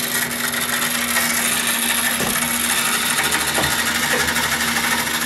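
Battery-powered electric motor of a coin-operated pool table's ball-release mechanism running steadily, whirring with a fast rattle as it tilts the aluminium ball tray; quite noisy.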